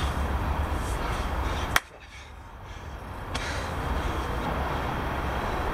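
Steady outdoor background rumble with a deep low hum. Near the middle a single sharp clap or snap cuts through, after which the sound drops away sharply and builds back up over about a second and a half.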